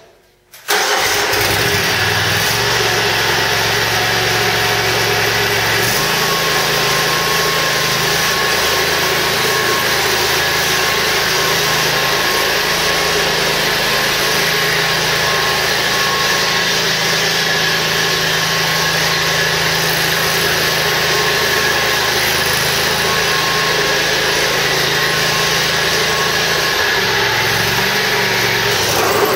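2005 Exmark Turf Tracer walk-behind mower's Kohler Command 20 hp V-twin engine starting within the first second, then running steadily. Its note shifts slightly about six seconds in and again near the end.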